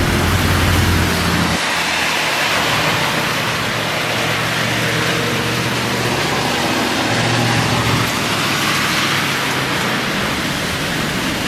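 Heavy rain pouring steadily, with the low hum of a motor vehicle's engine at the start and again in the middle.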